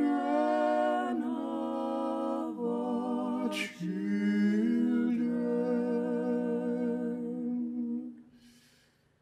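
A man's voice singing unaccompanied, holding long slow notes of a chant, with a breath taken about three and a half seconds in. The voice fades away about eight seconds in.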